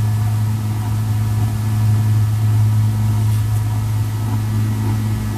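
Steady hum of a small electric motor driving a motorized display turntable as it spins, even and unchanging.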